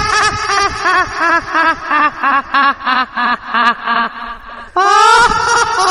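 A spooky cackling laugh: rapid 'ha-ha-ha' pulses, about four a second, that sink in pitch and fade away, followed near the end by a loud rising wail.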